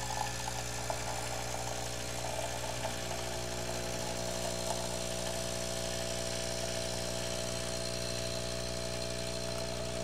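Nespresso Lattissima One capsule machine's pump humming steadily while it brews a lungo.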